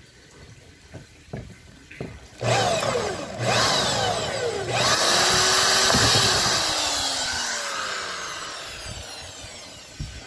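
Electric drill with a hole saw boring a hole through a car's body panel. After a couple of short starts about two and a half seconds in, it runs loud and steady, then slows and fades toward the end.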